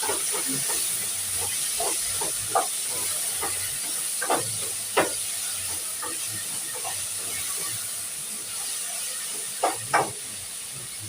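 Steady sizzling hiss of tomatoes frying in hot oil with onions and meat in a cooking pot, broken by a few sharp knocks, the loudest about five seconds in and a pair near the end.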